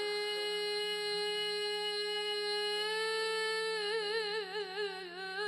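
A woman singing Azerbaijani mugham holds one long steady note, then about four seconds in breaks into a quick wavering trill ornament (tahrir) on the same pitch.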